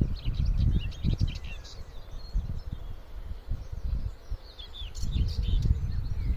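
Small birds chirping in bursts of quick notes, near the start and again about five seconds in, over an uneven low rumble of wind buffeting the microphone.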